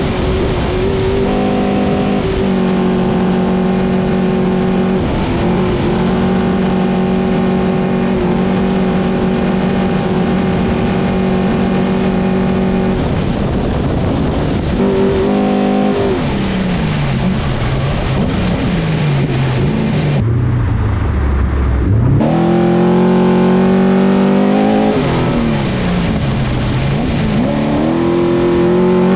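Mason all-wheel-drive trophy truck's 1000-plus-horsepower race engine heard from inside the cockpit. It is held at high, steady revs at speed for about twelve seconds. Then the revs drop and climb again several times as the driver lifts off and gets back on the throttle.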